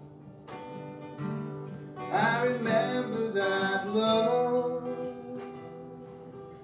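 Acoustic guitar played in waltz time, with a man singing a phrase from about two seconds in, the voice sliding between notes.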